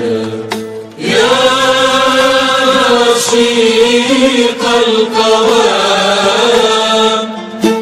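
Background music: a chant-like vocal with long held notes, dipping briefly just before a second in and then starting a new long sustained phrase.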